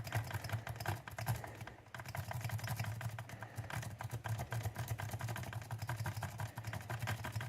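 Steel worm rake scraping rapidly back and forth across the pin tumblers in the keyway of an American 1305 series padlock: a fast, continuous clatter of small clicks. The pick is raking the pins under very light tension to bring the lock to a false set.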